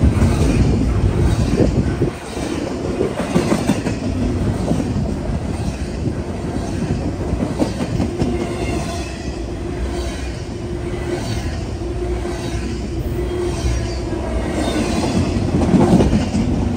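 Double-stack intermodal freight train rolling past close by: a steady rumble of wheels with irregular clacking over the rail joints and a faint wheel squeal.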